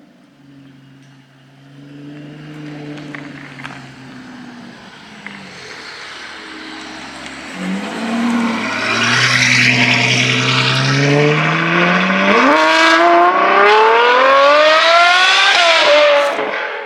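Sports car engine accelerating hard, its pitch first held low, then climbing steeply and continuously over about four seconds as it gets louder, then falling away near the end.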